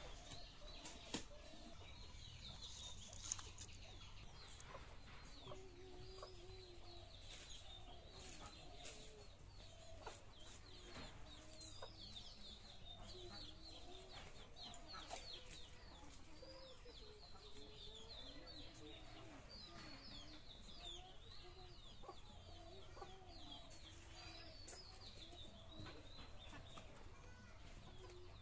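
Faint clucking of chickens, with a scatter of high chirps running through it. Two sharp clicks stand out in the first few seconds.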